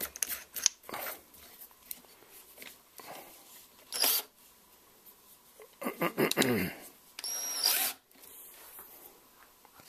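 Cordless drill clamped in a vise: its keyless chuck clicks and rattles as it is tightened by hand, then the drill motor runs briefly with a short high whine about seven seconds in and stops abruptly.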